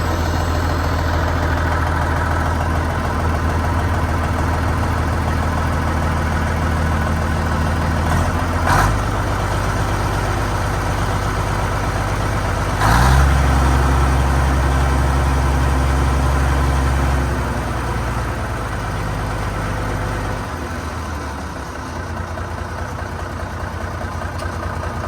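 Komatsu D65E bulldozer's Cummins NH220 six-cylinder diesel running just after starting, exhausting through a freshly patched, rebuilt muffler. It runs steadily, blips briefly about a third of the way in, steps up louder and higher at about halfway, then drops back to a lower idle in two steps.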